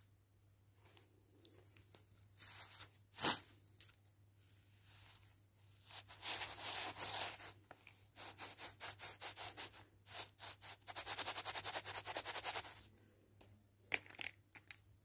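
Kinetic sand being pressed and scraped by hand around a plastic crab-shaped sand mold: crunchy, scratchy rubbing that speeds into a fast, even run of strokes in the second half. A sharp click comes about three seconds in and another near the end.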